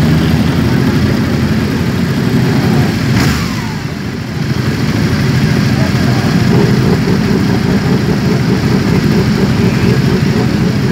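Several 1000cc superbike engines running together at idle in a crowded pack, a steady dense rumble. About three seconds in, a brief sharp sound is followed by a short falling whine.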